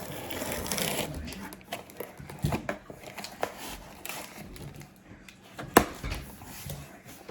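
Cardboard packaging being opened by hand: rustling and tearing for the first couple of seconds, then scattered sharp clicks and knocks of box handling, the loudest about six seconds in.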